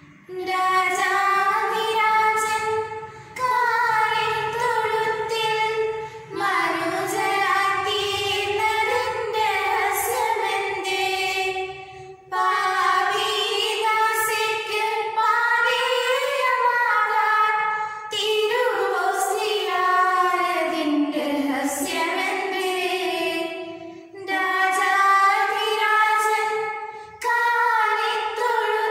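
Two girls singing a devotional hymn together in sustained phrases, with short breaks for breath between phrases.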